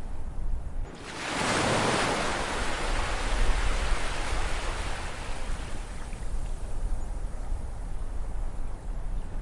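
Ocean surf: a wave breaks about a second in and its hissing wash slowly fades away, over a steady low rumble of the sea.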